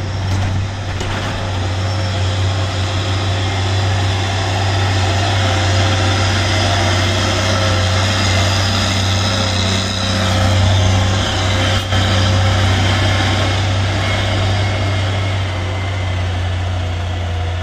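Diesel engines of orange-cab Mitsubishi Fuso trucks, a box truck and then a tanker, running steadily as they drive past close by, getting somewhat fainter near the end.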